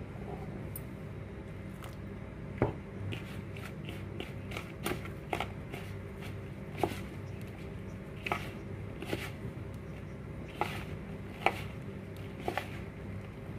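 Hand kneading a flour and semolina dough in a plastic bowl as water is worked in: irregular short clicks and scrapes, with the bangles on the wrist clinking, over a steady low hum.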